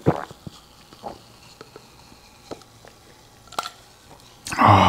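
A person drinking cola from a glass mug, with a soft click of a gulp every second or so. Near the end comes a short, loud, voiced breath out.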